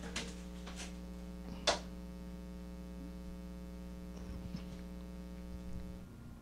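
Steady electrical mains hum with a buzzy row of overtones, a faint click under two seconds in; the hum cuts off suddenly near the end.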